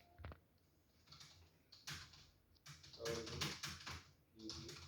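Typing on a computer keyboard: faint keystrokes in short, uneven runs with brief pauses between them.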